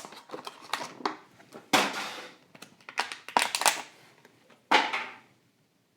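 Plastic and cardboard packaging of a diecast model car crackling and clicking as it is handled and opened, in irregular bursts that stop about five seconds in.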